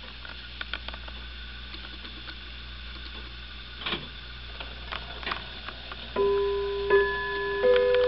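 A 1905 Regina musical hall clock's disc-played chimes starting a tune: after several seconds of faint irregular mechanism clicks, three notes are struck about six, seven and seven and a half seconds in, each left ringing.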